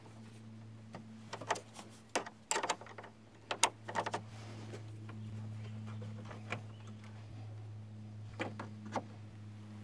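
Hands working the plastic wiring connectors and housing of a pickup's engine control module: scattered light clicks and knocks, a dozen or so, over a steady low hum.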